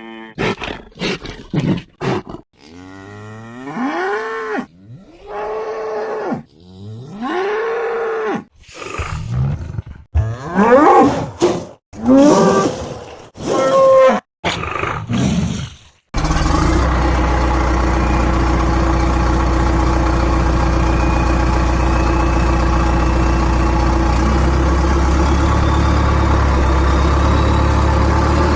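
Cartoon bulldozer-bull sound effects: a series of separate bellowing, moo-like calls, each rising then falling in pitch, some short and some drawn out. About 16 seconds in they stop and a steady heavy engine idle starts abruptly, with a faint whine slowly rising in pitch over it.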